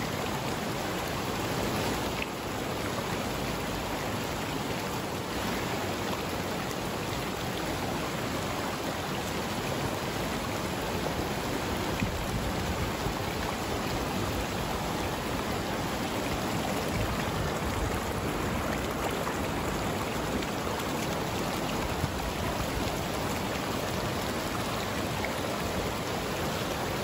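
Shallow mountain creek rushing over rocks and boulders: a steady, even rush of running water.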